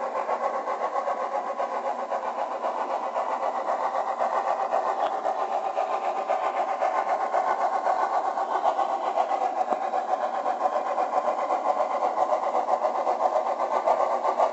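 On30 narrow-gauge model steam locomotive running steadily: a fast, even, continuous chuffing with no deep bass.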